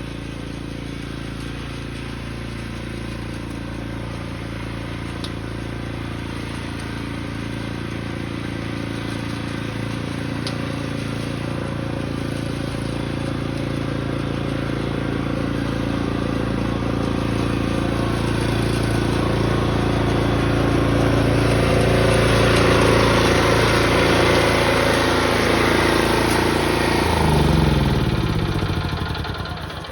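Small petrol engine of a snow-clearing machine running steadily and growing gradually louder as it comes closer; near the end its revs drop and the pitch falls.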